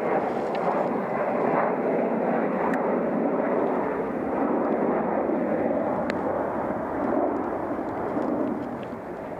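Airplane passing overhead: a steady, loud engine noise that eases off near the end.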